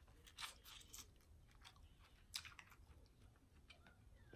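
Faint chewing: a handful of soft, wet mouth clicks and smacks at uneven intervals, the clearest about half a second and two and a half seconds in.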